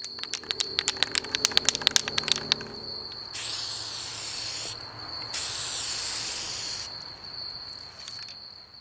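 Aerosol spray-paint can shaken hard, its mixing ball rattling in quick clicks, then two hisses of spray, each about a second and a half long, as it paints. A steady high tone sits underneath.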